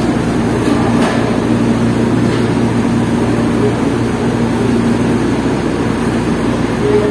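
Steady low hum and rumble of eatery background noise, with faint indistinct voices underneath.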